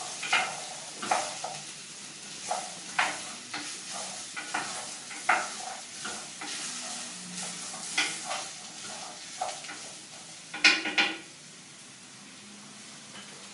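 Wooden spoon stirring diced vegetables sautéing in oil in a glazed clay pot: irregular scraping strokes over a steady sizzle. Near the end come two louder knocks, then the stirring stops and only the sizzle goes on.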